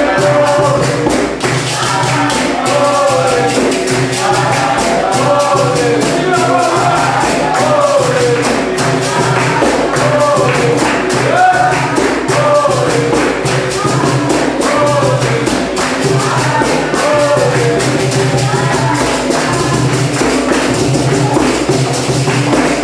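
Capoeira roda music: a group singing together over hand clapping, berimbaus and percussion, keeping a steady beat throughout.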